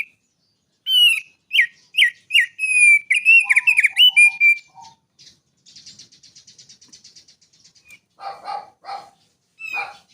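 Small songbird in full song: a run of loud, clear whistled notes, each sliding downward, for about four seconds, then a fast, high, fainter trill, then a few harsher, lower chattering notes near the end.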